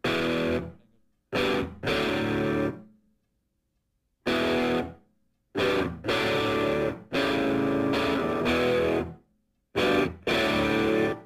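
Distorted electric guitar music: a stop-start riff of loud chords, each held briefly and then cut off into silence before the next.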